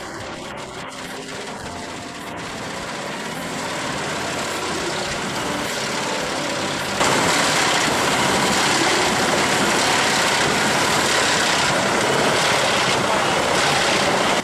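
Heavy forestry machinery running, its engine noise building over the first few seconds. About halfway through it jumps suddenly to a much louder, harsher noise that holds steady.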